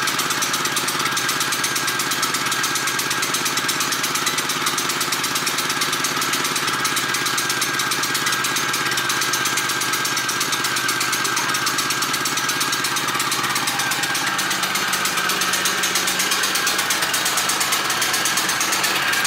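Champion 3500-watt dual-fuel portable generator running steadily on gasoline just after a cold start, its choke still pulled out while it warms up.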